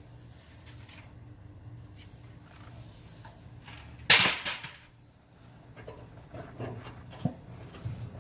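A single sharp clatter about four seconds in that rings briefly, with a few faint clicks of handling later and a low steady hum underneath.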